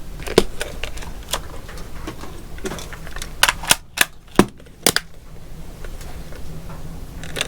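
Irregular sharp clicks and knocks of BMX parts and tools being handled as assembly begins, with a louder cluster of clicks in the middle.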